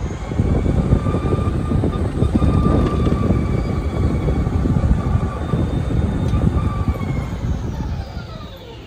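Electric golf cart being driven: a steady motor whine over a loud low rumble, the whine sliding down in pitch near the end as the cart slows.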